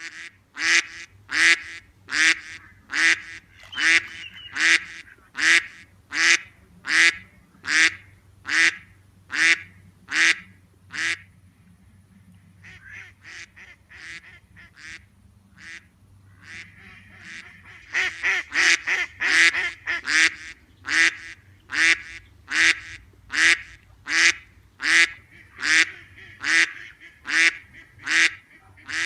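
Ducks quacking in a long, regular series of loud quacks, about one and a half a second. About twelve seconds in the quacks turn faint for several seconds, then come back loud and a little quicker.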